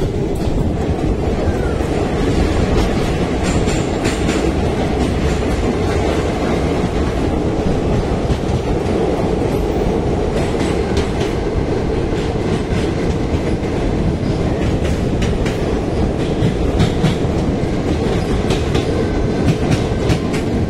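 Passenger train running through a tunnel, heard from the side of a moving coach: a steady rumble of wheels on the rails, with clickety-clack from the rail joints scattered through and coming in clusters around the middle and near the end.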